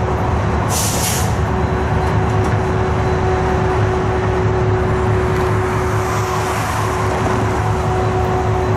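CSX diesel locomotive running at low speed: a deep engine rumble with a steady whine over it, and a short sharp hiss of air about a second in.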